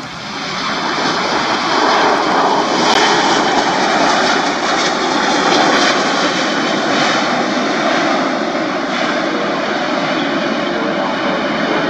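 Airbus A350-900 airliner on its landing rollout, its Rolls-Royce Trent XWB jet engines loud. The noise swells over the first two seconds and then holds fairly steady.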